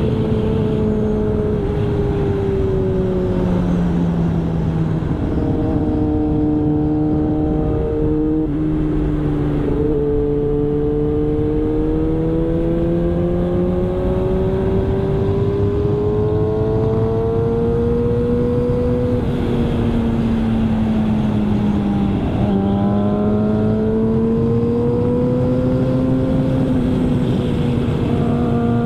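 Yamaha R6 sport motorcycle's inline-four engine running hard at high revs, its note rising and falling with the throttle, with brief breaks and re-rises at gear changes.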